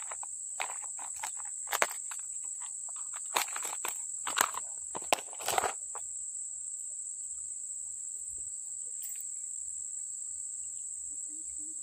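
Steady high-pitched chirring of insects. Over the first six seconds there is a run of rustles and crunches, the loudest a few sharp knocks, and then they stop.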